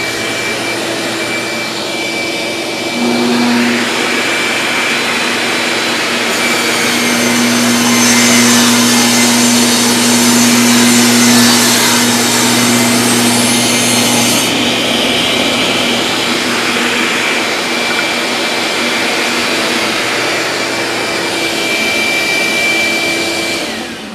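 Table saw running with a vacuum cleaner hooked up to it for dust collection, a loud steady whir. From about three seconds in to about fourteen seconds the sound changes and grows louder as the blade rips a mahogany board lengthwise.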